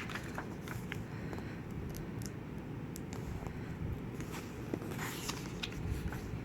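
Glossy pages of an album photo book being turned and handled: scattered light paper rustles and clicks, a brief flurry about five seconds in, over a steady low background hum.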